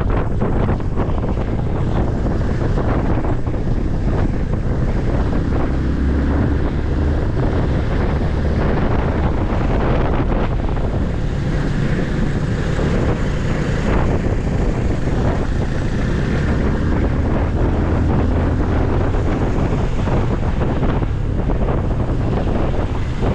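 Strong wind rushing and buffeting over the microphone during a ride, with a vehicle engine's low drone underneath that swells a little twice.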